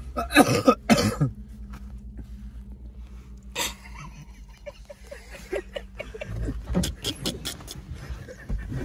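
Car engine idling, heard as a steady low hum inside the cabin, with a few short clicks and rustles and a brief voice sound in the first second.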